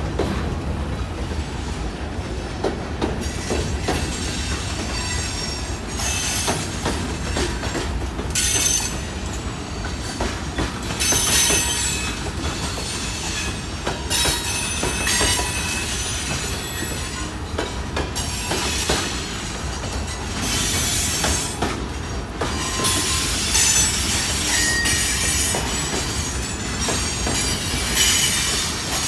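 Freight train cars rolling past at close range: a steady low rumble of steel wheels on rail with clicking over the rail joints. High wheel squeal and hiss rise and fade every few seconds.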